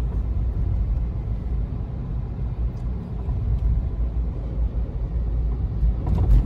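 Inside a moving car: steady low road and engine rumble from the car driving along at an even pace.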